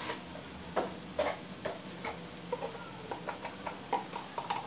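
Plastic spice jar's red screw lid being unscrewed and handled, a run of small irregular clicks and ticks, coming faster in the second half.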